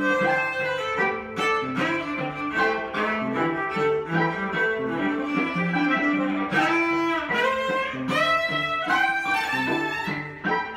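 Electric violin bowed in an A minor jam, a melody line over a repeating lower-pitched accompaniment, with a short break in the playing near the end.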